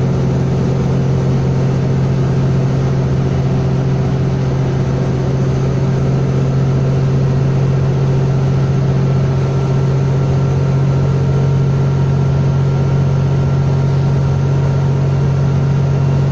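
Cabin noise of a 2010 Nova Bus LFS city bus travelling at a steady speed: a constant low engine and drivetrain drone over tyre and road noise, with a faint higher whine in the mix.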